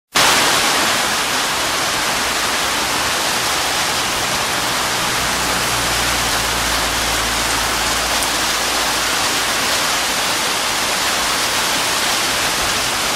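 Heavy tropical rain pouring down in a steady, dense hiss. A faint low hum sits underneath from about three to nine seconds in.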